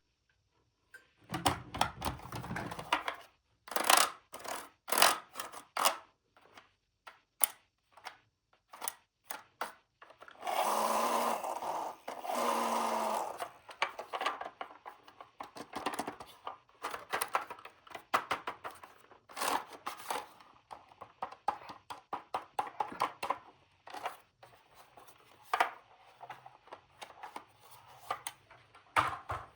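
Plastic toy pieces and packaging being handled: a run of scattered clicks, taps and light knocks. Between about ten and thirteen seconds in there is a longer, steady buzzing rasp in two parts.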